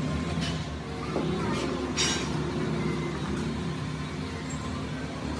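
A steady motor hum, with a few sharp clicks and knocks; the loudest knock comes about two seconds in.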